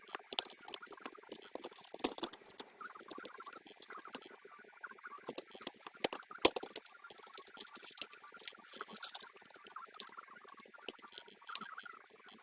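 Irregular small clicks, taps and scrapes of plastic and metal laptop parts being handled and pried apart during disassembly, with a sharper knock about six and a half seconds in.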